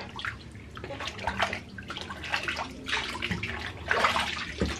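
Water splashing and dripping in a baby's bath basin as a wet washcloth is worked in it and wiped over the baby's face, in irregular bursts, loudest about four seconds in.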